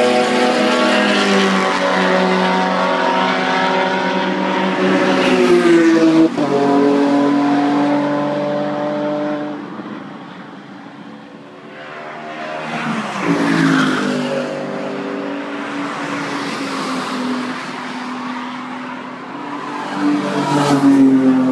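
Race car engines running hard at speed, with three cars passing by about 6 seconds, 14 seconds and 21 seconds in. The engine pitch swings sharply as each one goes past, and the sound falls away briefly between passes.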